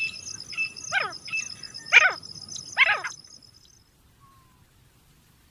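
Grey francolin calling: three loud, harsh calls about a second apart, each sweeping downward, over a steady high insect trill that stops a little after the third call.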